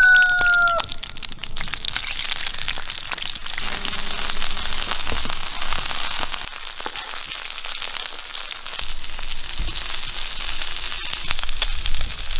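Meat sizzling on a hot stone slab over a wood fire: a steady frying hiss with many small pops and crackles. A short whistle-like tone sounds in the first second and cuts off.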